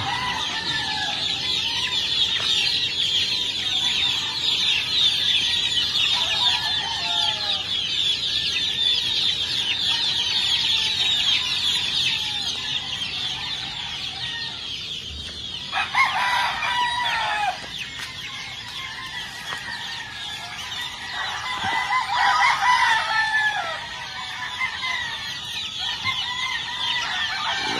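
A dense chorus of high peeping from many young black gamefowl chickens in their pens, with roosters crowing over it, loudest about sixteen seconds in and again about twenty-two seconds in.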